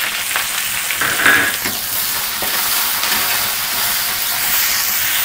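Sliced onions sizzling in hot refined oil in a kadhai, freshly added, with a steady frying hiss and intermittent scrapes of stirring through them.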